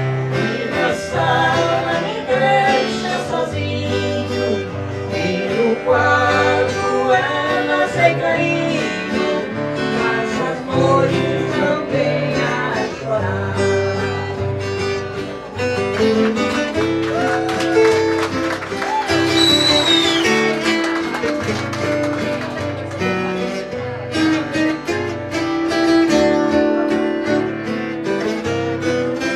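Viola caipira, the Brazilian ten-string guitar, playing a lively tune over guitar accompaniment and a low bass line.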